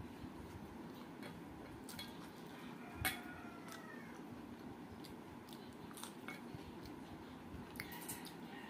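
Eating sounds of rice and dal being eaten by hand: chewing and mouth smacks with light clicks of fingers on a steel plate, over a steady low hum, with one sharper click about three seconds in.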